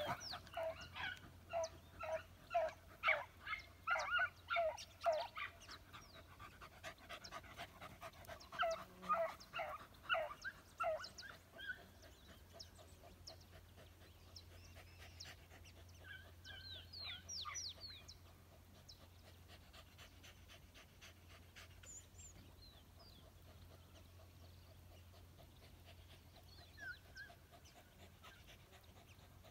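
Beagle hounds baying on a rabbit's scent trail, a quick run of yelping calls about two a second. Around ten seconds in they thin out to a few scattered, fainter calls.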